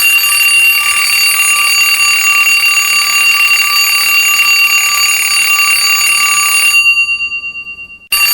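Alarm clock ringing loudly and without a break, marking that the 3-minute timer has run out. Near the end the ringing breaks off, its tone dies away for about a second, and then it starts again.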